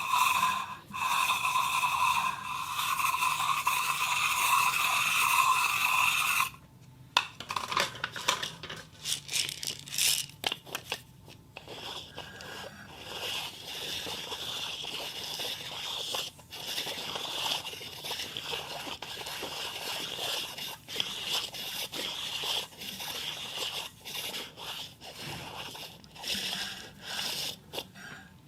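A ball rolling round inside a cup spun on a turntable: a continuous ringing roll that stops abruptly about six and a half seconds in. Scattered clicks and taps follow, then the rolling resumes with a higher ring and small clicks until near the end.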